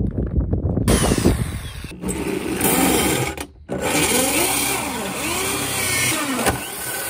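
Corded electric drill driving a 60 mm carbide hole saw through a thin stainless steel food pan: a steady motor whine with the saw teeth screeching and chattering against the metal. It starts about a second in, stops briefly about halfway through and starts again.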